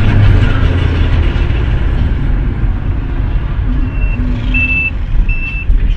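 Steady low rumble of a car driving at speed, engine and road noise heard from inside the cabin. From about two-thirds of the way in, a high electronic beep repeats roughly every 0.7 seconds.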